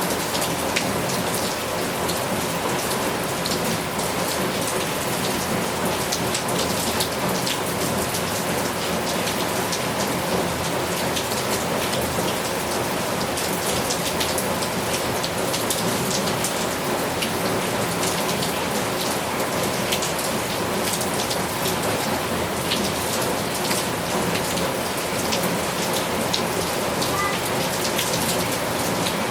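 Heavy rain falling steadily, with many sharp individual drop impacts close by.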